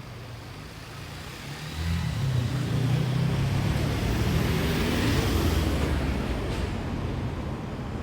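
A car engine close by, its low rumble swelling about two seconds in as the car drives past, then dropping off sharply at the end.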